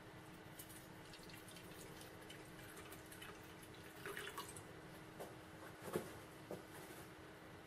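Water poured into an enamel kidney dish: a faint trickle, then a few drips after the pour stops, the loudest about six seconds in.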